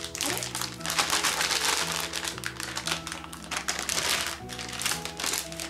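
Background music with a steady bass line, over the crinkling of plastic packaging being handled.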